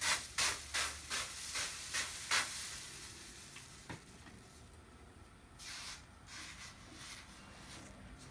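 Rhythmic sizzling hiss of flux and molten tin as a rag is wiped across the inside of a hot copper pan during tinning, about two or three strokes a second for the first couple of seconds, then quieter, with a few fainter strokes later on.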